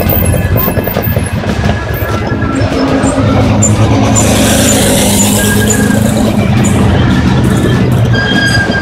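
Race car engines running as the cars drive past one after another, with a Porsche 911 GT3 Cup passing close about four seconds in.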